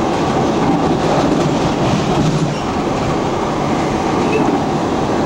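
Train running along the track, heard from its front cab: steady running noise of wheels on rail.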